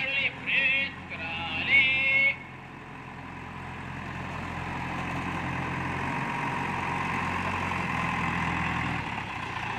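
A heavy vehicle's engine running, growing gradually louder from about two and a half seconds in and easing off near the end. A voice is heard in the first two seconds.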